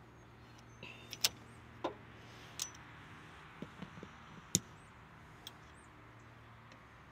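Scattered short clicks and taps of hand tools on a garden tractor's battery terminal and wiring, about eight of them over several seconds.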